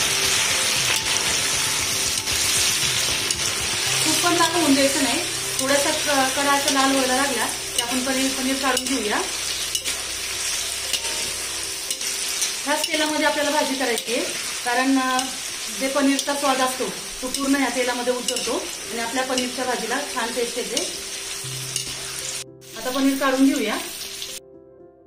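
Paneer cubes deep-frying in hot oil in a large kadhai, a steady sizzle, stirred with a wire-mesh skimmer. The sizzle cuts off suddenly just before the end.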